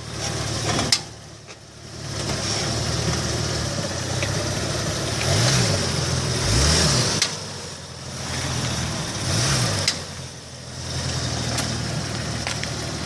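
2004 VW Passat running at low speed with its engine humming and briefly rising and falling in pitch three times, and a few sharp clicks, the loudest about a second in and near ten seconds. The clicks are the left-front clicking that comes when the car is stopped abruptly at low speed.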